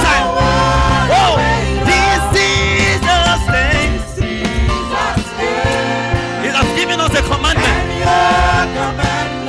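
Live gospel music: a choir and lead voice singing over a band with bass and drums.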